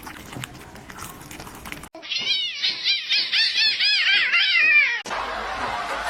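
A kitten meowing rapidly over and over, about four high calls a second, each rising and falling in pitch, for about three seconds from about two seconds in. Before the meows there are light clicks and rustling.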